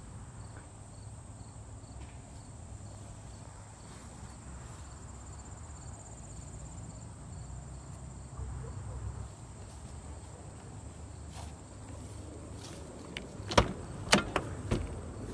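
Steady high-pitched chirring of insects over a low rumble, with a few sharp knocks near the end.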